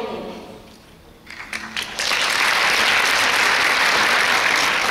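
Audience applauding: a few scattered claps about a second in, then full, steady applause.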